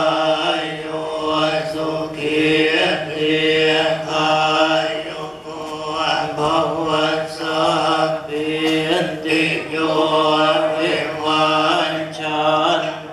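Buddhist monks chanting a steady, droning recitation that runs on without a break.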